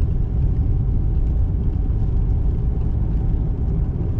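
Steady low rumble of a car driving on a snow-covered highway, heard from inside the cabin: tyre and road noise with the engine running underneath.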